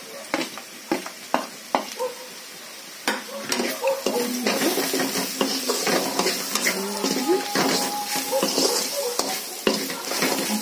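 Onion-and-spice masala sizzling in hot oil in a frying pan while a spatula stirs and scrapes it, with frequent clicks and scrapes against the pan. The sizzle grows louder about three seconds in, as the freshly added ground spices fry.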